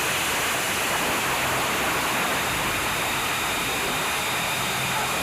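A steady, even rushing noise, like air or water, that begins to die away near the end.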